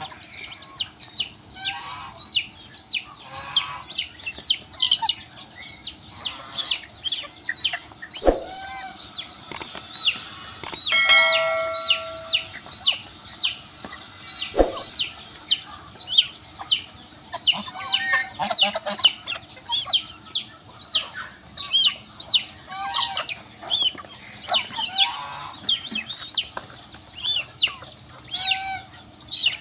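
Poultry flock feeding: young chicks peep high and shrill over and over, about two to three times a second, among scattered lower clucks from the adult chickens. Near the middle comes one longer held call, and there are a couple of sharp taps.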